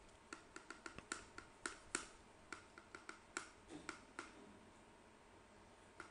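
Faint, irregular clicking of keys being tapped, several clicks a second, which stops about four seconds in.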